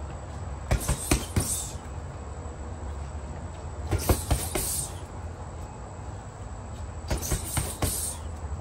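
Punches landing on a heavy bag in three quick combinations of about four strikes each (jab, cross, hook, cross), a few seconds apart, over a steady low background hum.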